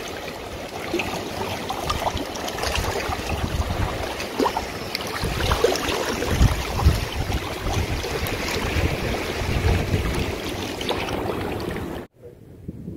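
Shallow sea water lapping and sloshing over shoreline rocks, with wind buffeting the microphone. The sound cuts off suddenly near the end.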